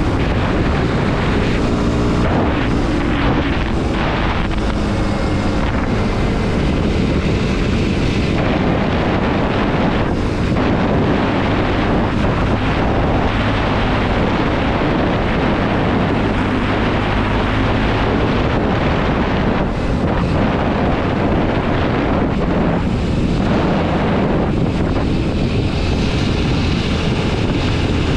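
Kawasaki KLX230 SM's air-cooled single-cylinder engine running while the bike is ridden, its pitch shifting up and down now and then, with steady wind noise on the microphone.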